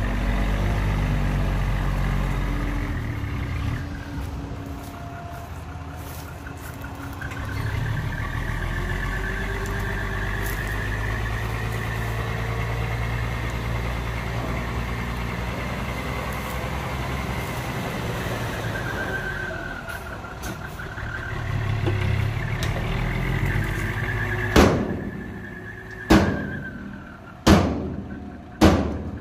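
Hyundai dump truck's diesel engine running, then revving higher while the hydraulic hoist tips the loaded bed to dump soil, with a high whine that rises and falls. Near the end, four sharp metal bangs about a second and a half apart.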